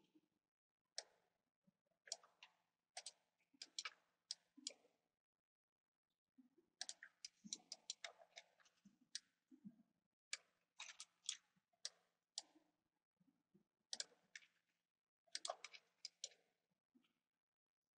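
Faint clicking of a computer mouse and keyboard in irregular clusters of quick clicks, with a brief pause about five seconds in.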